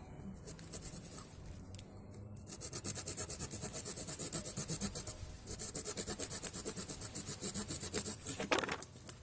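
Small pocket-knife saw blade sawing through a dead Myoporum laetum (mousehole tree) branch. After a few light scrapes it cuts in quick, even back-and-forth strokes, several a second, with a brief pause about halfway through.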